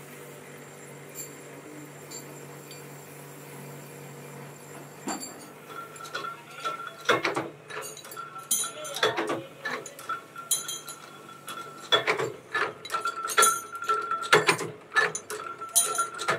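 Steady hum of the motor driving a spinning wheel against a steel rod. About five seconds in, this gives way to irregular sharp metal clinks and clanks as steel rods are set and worked in a press, with a high ringing tone between some of the strikes.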